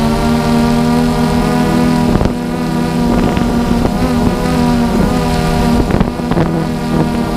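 DJI Phantom 2 quadcopter's motors and propellers humming steadily in flight, with wind buffeting the microphone and a few brief bumps.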